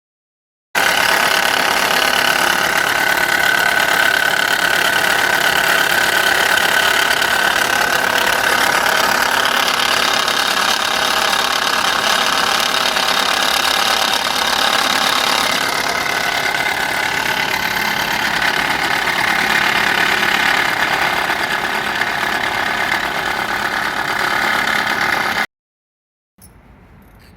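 Subaru Impreza G4's boxer four-cylinder engine running steadily with a high steady tone over it: the abnormal engine noise that the repair is meant to cure. It cuts off suddenly near the end.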